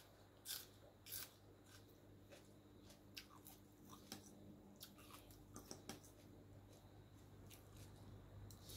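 Faint eating sounds: chewing and scattered small clicks of mouth and fork while eating a spicy instant-noodle salad with red sausage, two louder clicks about half a second and a second in, over a faint steady low hum.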